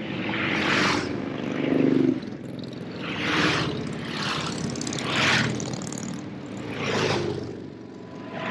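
Motorcycles passing one after another. Each swells and fades every second or two, and one bike's low engine note is loudest about two seconds in.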